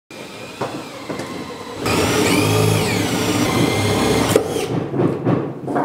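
DeWalt cordless drill boring through a wooden wall stud: the motor starts about two seconds in and runs for about two and a half seconds, its pitch rising and then dropping as the bit bites into the wood, before it stops.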